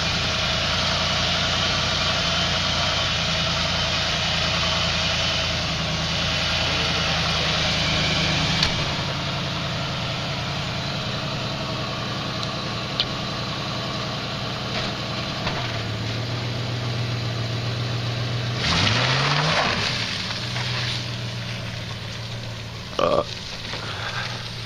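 1982 Ford LTD station wagon's 302 V8, on a two-barrel carburettor, idling steadily; its note shifts a few times, with a short rise in pitch about three quarters of the way through. The owners think it is running a little rich and needs its timing set.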